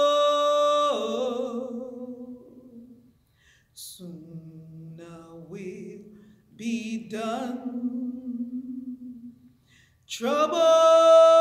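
A woman singing a slow spiritual a capella into a microphone: a long held note fades out in the first couple of seconds, softer, lower phrases follow after a short pause, and a strong sustained note comes in near the end.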